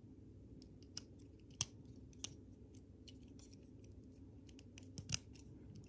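LEGO Technic plastic pieces clicking and ticking as pins are pressed into beams: a scatter of small clicks with a few sharper snaps, the loudest about five seconds in.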